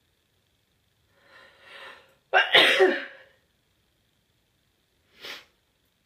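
A person sneezing once, loudly and suddenly, after a couple of quieter build-up breaths, from an itchy nose. A short, quieter noise follows near the end.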